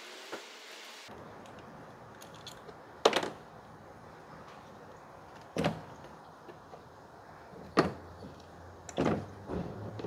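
Hard plastic clicks and knocks of ignition coil connectors being unlatched and the coils handled on top of the engine: four sharp clicks a couple of seconds apart, with faint rustling between.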